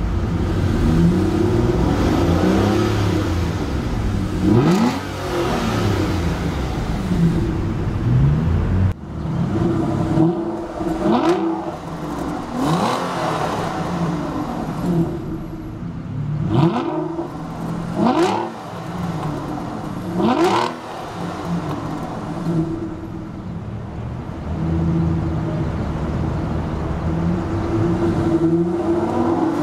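Aston Martin Virage's 5.9-litre V12 idling and blipped several times, each rev rising sharply and falling back to idle. It is heard from inside the cabin for the first several seconds, then from behind the car at its twin exhaust tips, where it settles into a steady idle for the last few seconds.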